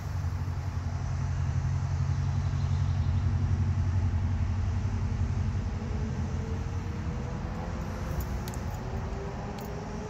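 A motor vehicle's engine running nearby, a low hum that grows louder over the first few seconds and then fades off, as of a vehicle passing slowly.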